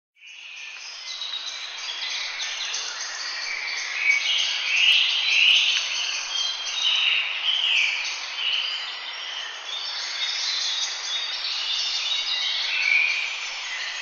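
An early-morning chorus of many small birds chirping and singing at once, a dense overlapping mix of short high notes with some louder swooping phrases. It swells in over the first couple of seconds.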